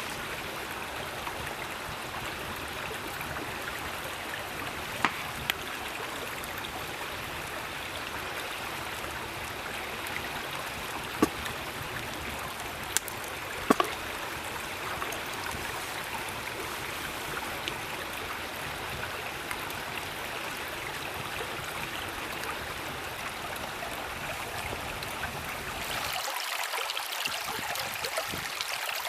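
Cooking over a charcoal and wood fire: a steady sizzling hiss with a few sharp, separate pops and crackles. Near the end the sound changes, turning brighter and losing its low rumble.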